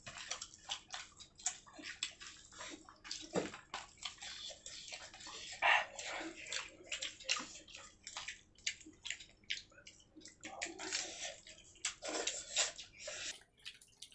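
Close-up wet eating sounds of fish in gravy with rice: many quick irregular squelches, lip-smacks and chewing clicks, one louder smack about six seconds in.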